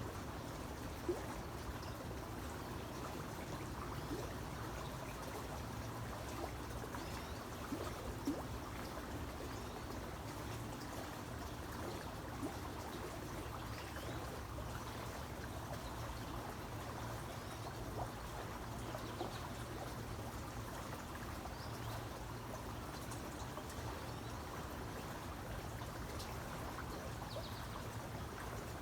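Creek water trickling and pouring steadily, with a few brief louder splashes.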